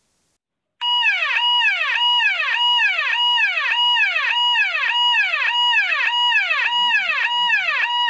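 Police siren ringtone playing from a phone app: an electronic siren tone that holds a high pitch and then sweeps down, over and over at about two cycles a second, starting about a second in.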